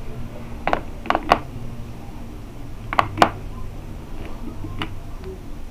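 Brass 9mm cartridges clinking against each other and against a clear plastic ammunition box as they are handled: a few sharp clicks, two close pairs about one and three seconds in, then lighter ones.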